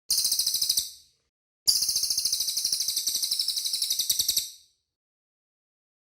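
Cililin songbird singing: a short, rapid, high-pitched trill, then after a pause a longer rapid trill of about three seconds.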